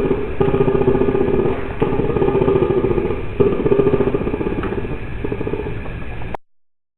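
Reconstructed Irritator challengeri call built from anhinga and cormorant recordings: a rapid, rattling, guttural croak repeated in about four phrases with short breaks between them. It cuts off suddenly about six seconds in.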